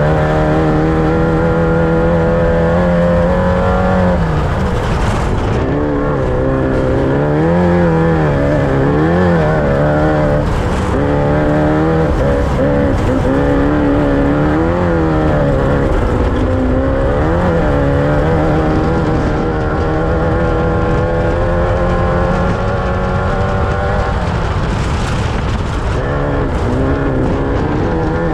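Off-road race vehicle's engine running hard, its revs rising and falling every second or so, over a constant rush of noise.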